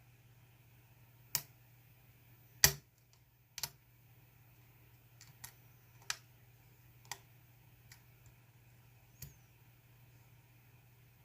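Irregular sharp clicks and taps of lock-picking tools working a GEGE 6-pin euro cylinder, about eight in all, the loudest one close to three seconds in and fainter ones spaced a second or so apart after it.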